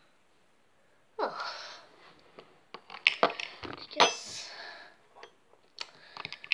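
A short breathy whoosh, then sharp clicks and knocks of things being handled on a tabletop, the loudest about three and four seconds in, including the lid of a small plastic tub being touched.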